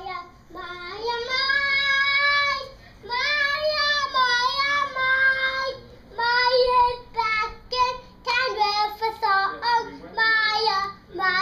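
A young child singing, holding two long notes over the first six seconds, then going on in shorter phrases.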